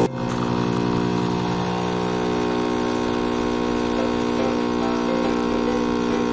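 Espresso machine's pump running with a steady buzzing hum while it pulls a shot; the sound dips briefly at the start, then runs on evenly.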